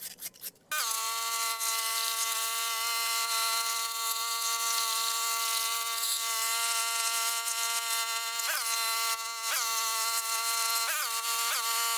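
Electric power tool motor whining at a steady high pitch after starting about a second in. Near the end its pitch sags briefly four times, as it does when the tool is pressed into the work.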